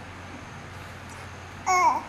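Baby babbling: one short, high-pitched squeal near the end, over a steady low hum.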